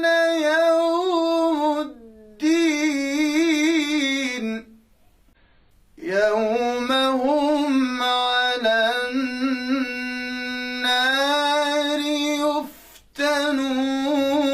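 A male reciter chanting the Quran in melodic tajwid style, drawing out long vowels into held notes with wavering ornaments. The phrases are broken by a short breath about two seconds in, a longer pause of about a second near the middle, and another brief break near the end.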